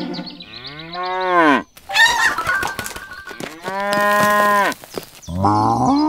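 Cows mooing: three long moos, the first falling in pitch, the second held level, the third starting near the end. A short noisy burst falls between the first two.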